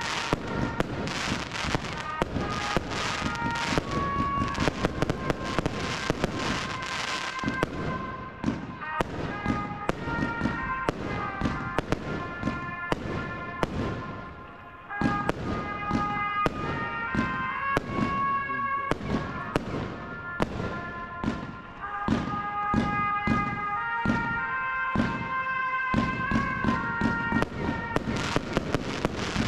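Fireworks bursting overhead: a rapid barrage of bangs and crackle for the first several seconds, then bursts at a slower, irregular pace with a brief lull about halfway through. Music plays underneath over the village public-address loudspeakers.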